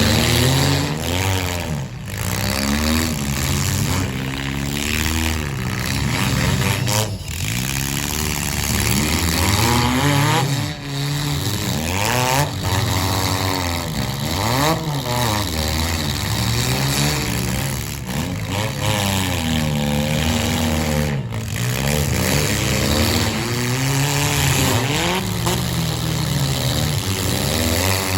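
Several four-cylinder demolition derby cars' engines revving up and down, overlapping one another, their pitch rising and falling every second or two.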